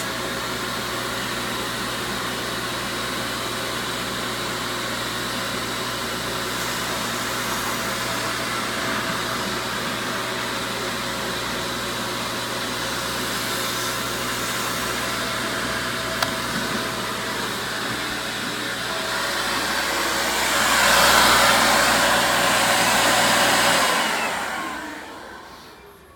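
Wet vacuum motor running steadily while extracting from the upholstery and carpet. The hiss grows louder for a few seconds near the end, then the machine winds down and stops.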